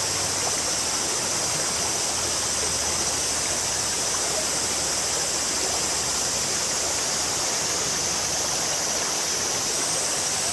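A clear, shallow stream running steadily, an even, unbroken sound of flowing water.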